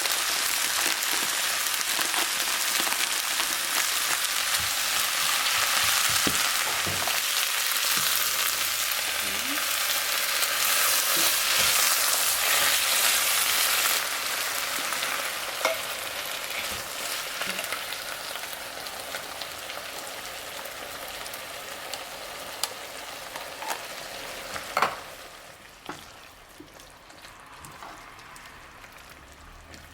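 Thai curry paste sizzling as it fries in a pan and is stirred. The sizzle is loud for the first half, drops about halfway through and fades further, with a few sharp clicks of the utensil against the pan and one louder knock near the end.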